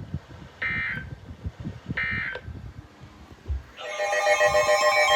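NOAA Weather Radio sending the Emergency Alert System end-of-message data code (SAME 'NNNN'): short buzzy bursts of data tones, each about a third of a second, two of them a little over a second apart, closing the warning just read. Near the end a steady, rhythmic sound of many held tones, like music, starts and continues.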